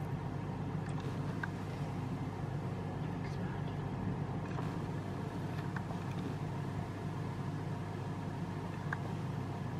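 Steady low rumble of outdoor background noise, with a few faint ticks.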